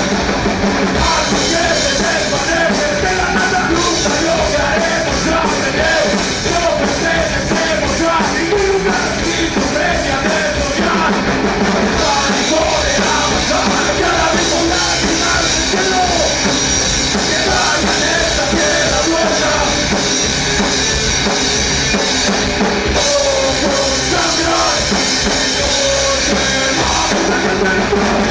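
A groove metal band playing live: distorted electric guitars and bass over a steady, loud drum kit, continuous throughout.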